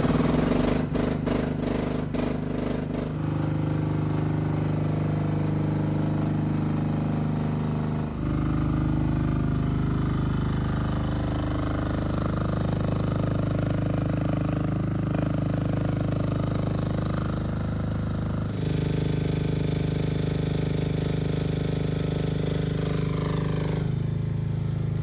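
A Chinese mini excavator's small engine running steadily, its note shifting in steps a few times as the machine is worked.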